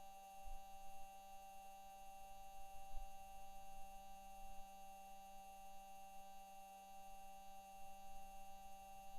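Perseverance rover driving on Mars, as picked up by its own microphone: a steady, faint whine of several held tones, with low thumps from the rover's metal wheels about half a second and three seconds in.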